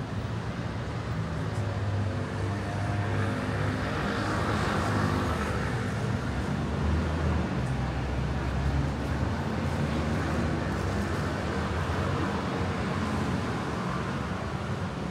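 Road traffic: motor vehicles running past with a low engine drone and tyre noise, swelling twice as vehicles go by.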